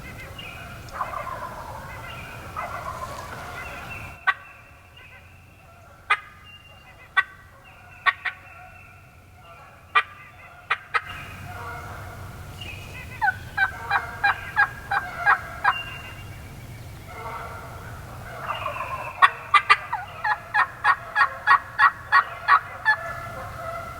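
Turkey calling: fainter calls in the first few seconds, then a handful of sharp single clucks, then two loud runs of evenly spaced yelps, about four notes a second, each lasting two to four seconds.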